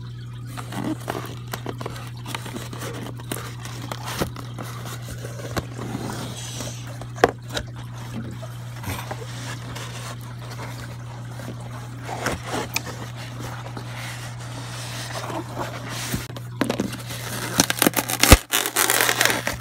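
Styrofoam shipping box and its packaging being handled and opened: scraping, rustling and a few sharp knocks, busiest and loudest near the end, over a steady low hum.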